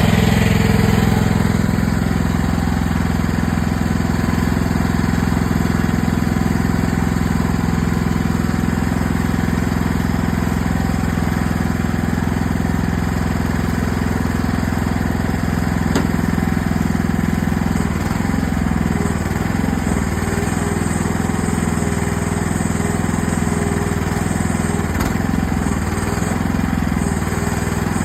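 AGT mini excavator's engine running steadily while digging, a little louder for the first couple of seconds. In the last ten seconds a wavering tone rises and falls over the steady drone.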